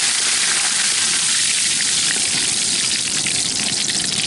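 Curry leaves and fennel seeds sizzling loudly in hot oil in a kadai, a dense hiss that thins after about three seconds into scattered crackles and pops.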